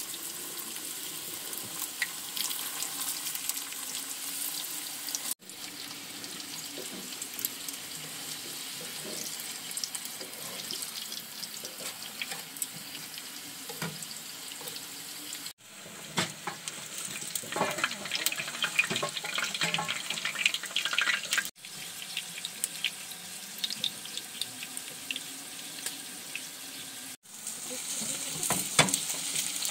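Food sizzling and frying in a pan: a steady crackling hiss. It cuts off and starts again abruptly four times.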